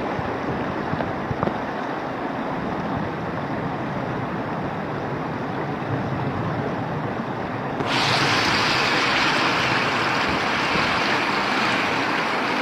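Floodwater rushing: a steady, noisy rush of water. About eight seconds in it turns suddenly louder and hissier.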